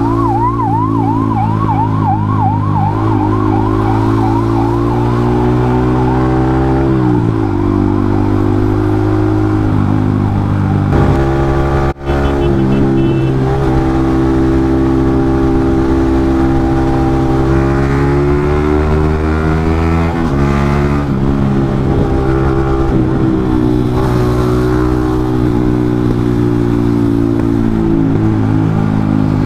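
Ambulance siren wailing fast up and down for the first several seconds, fading as it falls behind. Underneath, a Yamaha MT-15's 155 cc single-cylinder engine with a loud exhaust runs under way in traffic, its pitch falling and climbing again several times with throttle and gear changes.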